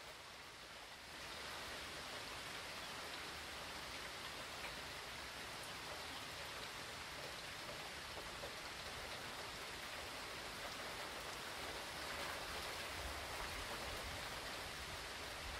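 Steady hurricane rain, an even hiss that gets louder about a second in and then holds.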